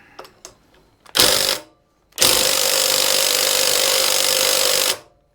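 Power impact wrench hammering on a flywheel puller bolt: a short burst about a second in, then a steady burst of nearly three seconds that cuts off sharply. The flywheel of the antique Briggs & Stratton engine stays stuck on its shaft.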